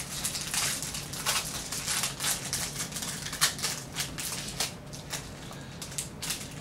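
Trading-card pack wrappers being torn open and cards handled and flicked through: a run of irregular crinkles, rustles and small clicks.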